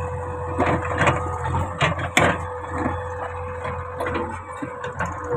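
JCB backhoe loader running with a steady engine hum and whine while its backhoe bucket scrapes and knocks against stones and soil, with a sharp crack about two seconds in.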